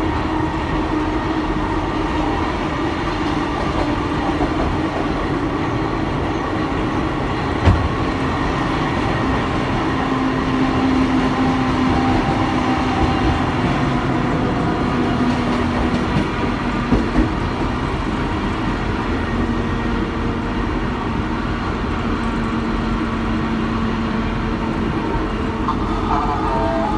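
Interior running noise of Kotoden's vintage electric car 120 under way: steady rumble of the wheels on the rails with a hum that sinks slowly in pitch, and a single sharp knock about eight seconds in.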